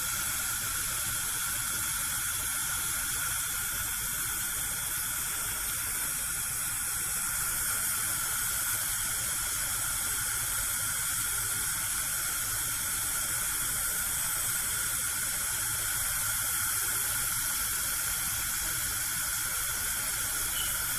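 Gas cooker burner alight, its flame giving a steady hiss.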